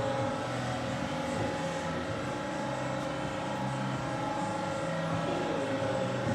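2V440A jig boring machine running, a steady mechanical hum with a constant whine.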